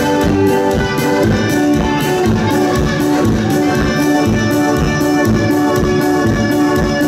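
Live band music for dancing, played loud through a sound system, with a steady, even beat under held melody notes.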